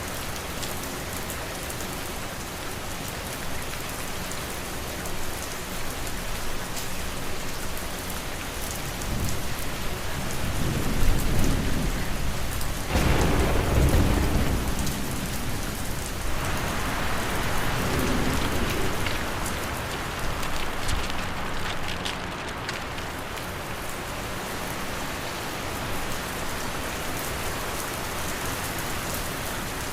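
Steady rain hiss from an ambience mix. A deep rumble swells in about ten seconds in, is loudest a few seconds later, and fades out by about twenty seconds.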